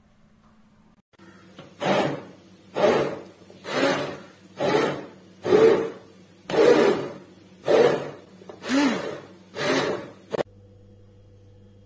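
Cooked dal with fenugreek leaves being mashed in a metal pot with a hand masher: nine noisy scraping strokes about a second apart, with a short one at the end. A faint steady hum runs underneath.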